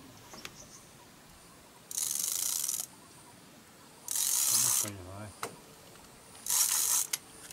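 Spinning fishing reel cranked in three short bursts, its gears whirring, as a hooked fish is reeled in.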